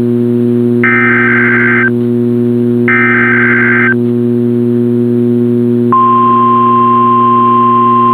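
NOAA Weather Radio EAS/SAME header: two roughly one-second bursts of shrill digital data tones, about a second apart. About six seconds in, the steady 1050 Hz warning alarm tone starts and holds, over a constant low electrical hum.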